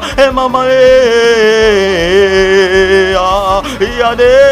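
A man's voice chanting long, held, wordless notes with a slight waver and a few short breaks, in charismatic prayer.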